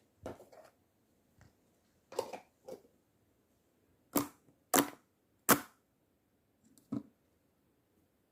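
Slime being pressed and stretched by hand, giving a string of short sharp pops and snaps as air pockets burst, the loudest three coming in quick succession around the middle.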